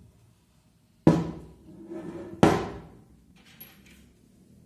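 Two heavy knocks about a second and a half apart, each with a short fading ring, as the aluminium gear housing and plastic motor housing of a Bosch GBH 5/40 DCE rotary hammer are handled and set down on a table.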